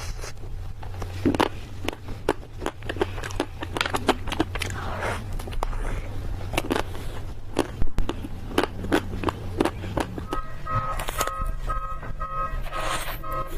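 Chewing and crunching of sweets: many sharp crunches over a steady low hum. About ten seconds in, a repeating high electronic tone starts, like a jingle.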